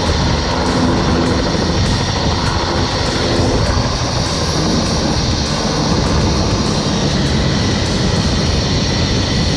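Helicopter running, a loud steady din of rotor and engine with wind buffeting the microphone through the open doors.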